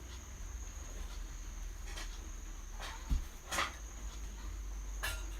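A few short, sharp clicks and one dull knock about three seconds in as the reassembled tile cutter is handled, over a steady high-pitched insect trill of crickets and a low hum.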